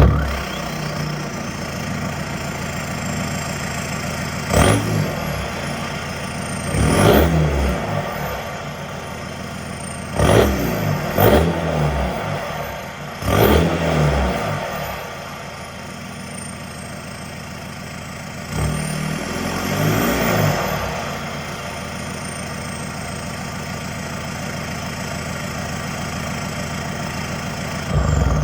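2011 Volkswagen Jetta Sportwagen TDI's 2.0 L common-rail four-cylinder turbodiesel, with DPF/EGR delete and muffler delete, idling just after start-up and blipped about six times. A high whistle rises and falls with each rev, and the engine cuts off right at the end.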